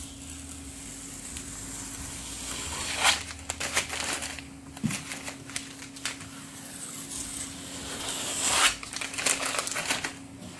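Paper application tape being peeled slowly off applied vinyl lettering: a tearing rustle that swells to a loud crackle about three seconds in and again near nine seconds as each strip comes free.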